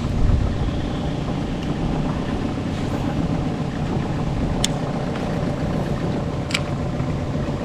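A boat motor runs steadily with a low rumble and a faint hum. Three sharp clicks sound over it: one at the start, one a little past halfway and one near the end.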